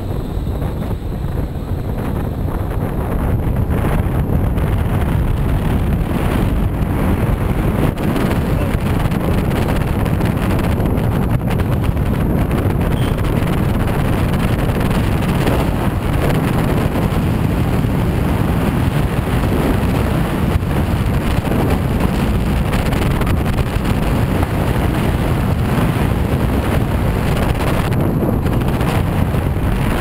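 Rainforest bobsled car rolling fast along steel tube rails, its wheel noise mixed with wind buffeting the helmet-camera microphone. It builds over the first few seconds as the sled picks up speed, then holds steady.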